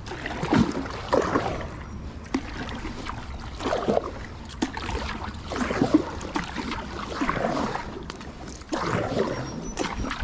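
Wooden Greenland paddle blades dipping into lake water in alternating kayak-style strokes, splashing and dripping about once every second and a half.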